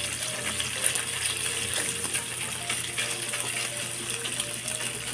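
Raw ground meat sizzling in hot oil in a non-stick frying pan, stirred and pushed with a wooden spatula, with a steady hiss and small scraping taps from the spatula on the pan.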